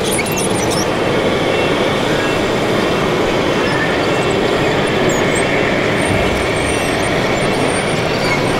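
Radio-controlled Komatsu bulldozer model running on its metal tracks while pushing dirt: a steady mechanical clatter and rumble of tracks and drive, with a few short high squeaks.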